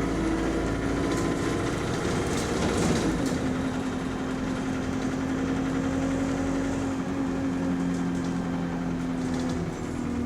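Diesel engine and driveline of a single-deck bus heard on board while under way. The engine note drops about three seconds in and then holds steady, with some faint rattles. The uploader reports rod knock in this engine.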